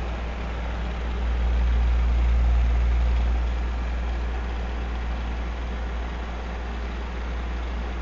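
Old electric fan running, a steady low hum under an even rush of air. It swells louder about a second in and settles back down after about three and a half seconds.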